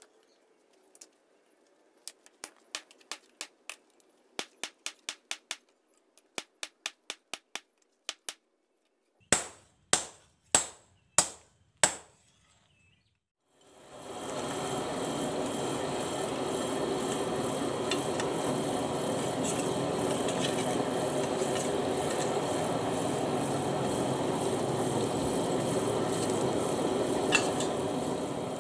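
Light taps, two or three a second, for several seconds; then five loud, ringing hammer strikes about two-thirds of a second apart. A power tool then starts and runs steadily for the rest of the time.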